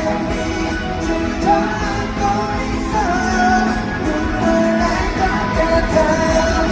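A live pop-rock band plays, with a lead vocal carrying a sustained, gliding melody over guitars and drums.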